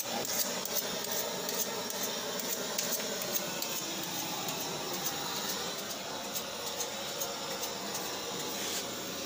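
Handheld butane blowtorch hissing steadily as its flame singes a plucked chicken.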